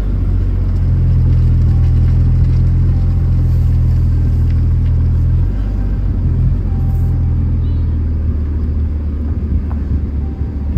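Steady low rumble of a running motor vehicle. The deep hum drops in level about five and a half seconds in.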